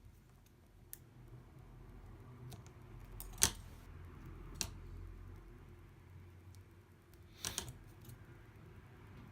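Scattered small clicks and taps of hands handling tape and parts on an opened iPad mini 2, as tape is stuck over the magnets. The sharpest click comes about three and a half seconds in and a couple more follow near the end, over a faint low hum.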